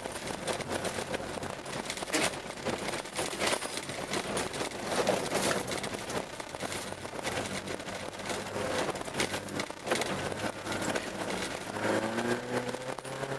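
Car engine and tyre noise heard inside the cabin while driving on a snow-covered ice track, with many sharp clicks and knocks throughout. Near the end the engine's pitch rises as the car accelerates.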